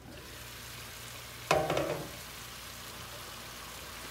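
Chicken pieces simmering in a wok in salted water, a steady bubbling hiss that becomes louder as the glass lid is lifted off. About a second and a half in, a clink with a short ring, the glass lid being set down.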